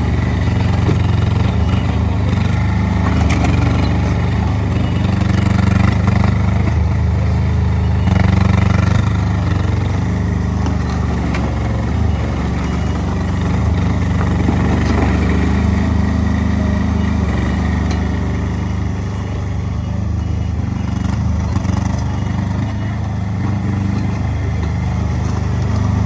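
Small engine of a Worky Quad WX15 compact skid steer loader running steadily, with a few faint knocks.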